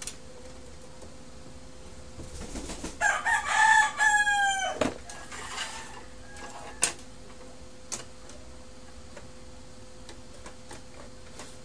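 A rooster crows once, a call of about two seconds that falls in pitch at its end. A few sharp clicks come from handling the opened printer's parts, over a faint steady hum.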